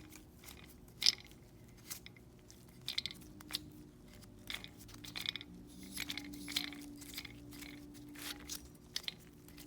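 Mercedes-Benz E500 engine idling with irregular, sharp, high-pitched squeaks or chirps from the accessory belt drive, coming every half second to a second over a steady low hum: the sign of a bad belt tensioner.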